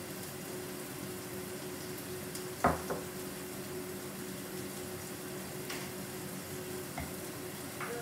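A small ceramic dish set down on a wooden table with one sharp knock about two and a half seconds in, then a few faint clicks of chopsticks against a plate, over a steady hiss and low hum of room noise.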